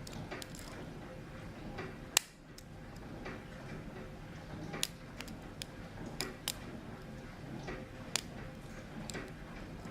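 Single-pin picking of a Hermex CH-50 five-pin padlock: a lock pick working the pins in the keyway, giving scattered sharp clicks. The loudest click comes about two seconds in, and a few more follow irregularly.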